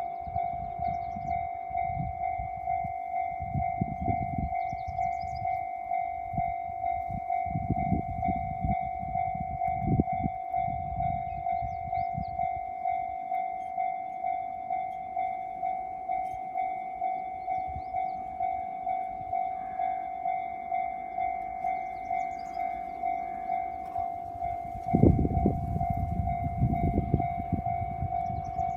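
Japanese level-crossing warning bell ringing in an even, fast repeating rhythm. Low rumbling noise comes and goes under it and rises sharply about 25 seconds in as the approaching freight train draws near.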